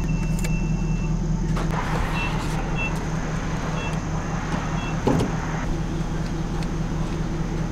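Gas station fuel pump: short high electronic beeps as its keypad is pressed, then a rushing as gasoline flows through the nozzle into the tank, a few more short beeps along the way, all over a steady low hum.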